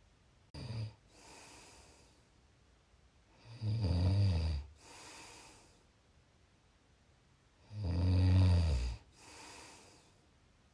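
Sleeper snoring: low-pitched snores on the in-breath about every four seconds, each followed by a softer breathy out-breath. The first snore is short; the next two are longer and louder.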